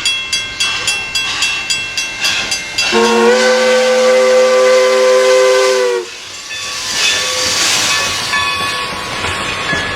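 A train clattering over rail joints at about three clicks a second, then a long chord blast of its whistle held about three seconds, followed by a steady hiss.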